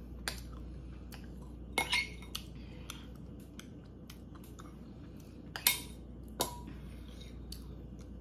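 Metal spoon clinking and scraping against a glass bowl: a handful of sharp clinks with a short ring, the loudest a pair about two seconds in and another near six seconds.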